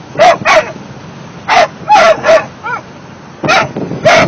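Two 16-week-old mastiff puppies singing together in short, high, yelping barks that come in quick clusters of two to four, separated by pauses of about a second.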